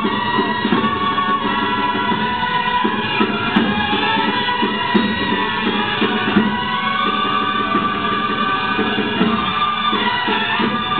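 Live stage music: a sung melody over instrumental accompaniment, with a steady rhythmic pulse underneath.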